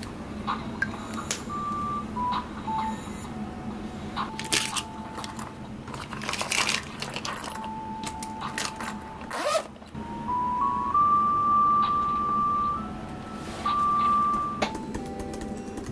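Soft background music of slow held notes stepping from pitch to pitch, with small clicks and rustles of pens and a silicone pen case being handled on a desk.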